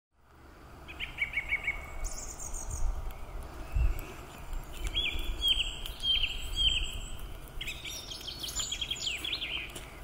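Wild songbirds singing in the Scottish Highlands: a quick run of chirps, then a series of repeated down-slurred whistles and a busier warbling phrase near the end. A low rumble runs underneath, and the sound fades in over the first second.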